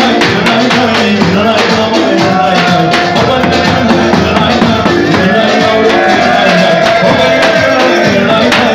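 Loud live dance music: a davul bass drum beating under a held melody line.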